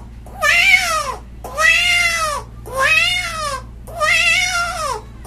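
A man imitating a cat with his voice: four drawn-out meows, each about a second long, rising and then falling in pitch with a wavering tone.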